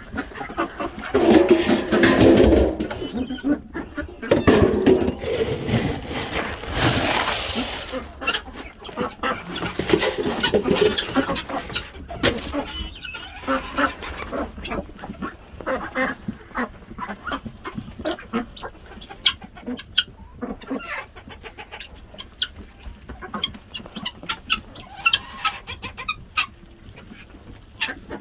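Backyard chickens clucking, loudest in the first ten seconds, then quieter with many short taps and clicks.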